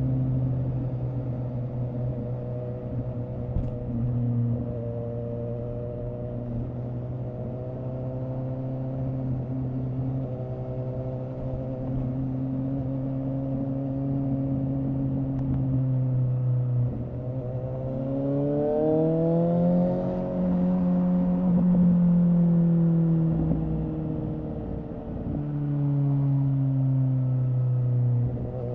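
2017 Suzuki GSX-S750's inline-four engine through a Yoshimura R11 exhaust with the dB killer removed, running at fairly steady revs with a few small steps in pitch. About eighteen seconds in it revs up steeply, holds high for a few seconds, then eases back down.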